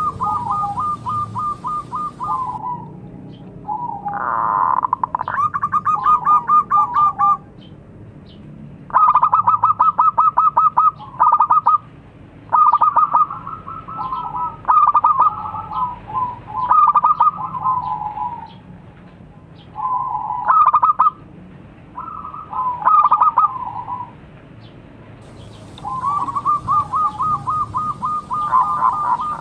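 Zebra dove (perkutut) cooing: about eight phrases of quick, stuttering coos, each a second or few long, with short pauses between them.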